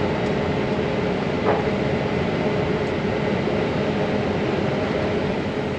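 Steady running noise of a Case IH combine heard from inside its closed cab as it drives along a road, with a faint steady hum. A light knock sounds about a second and a half in.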